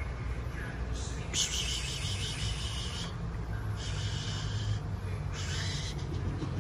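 Night insects buzzing in bursts of one to two seconds that start and stop sharply, over a steady low hum.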